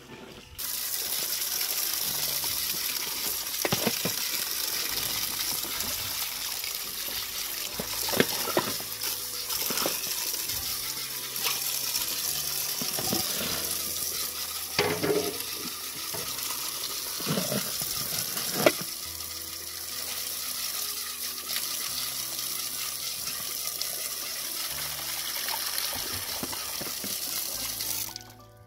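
A stream of water pouring and splashing steadily into a steel bowl of vegetables as they are washed. Several sharp knocks come through it, louder than the water.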